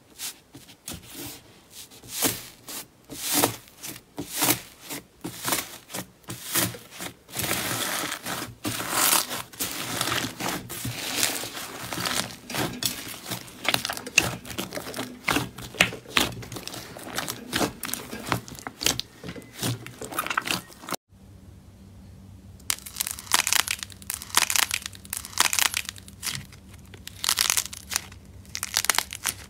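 Hands pressing, kneading and squeezing slime: a rapid run of crackling, popping and squishing sounds, several a second, from the beads and air pockets in the slime. After a short break about two-thirds through, a softer white slime is squeezed with more spaced-out pops over a faint steady hum.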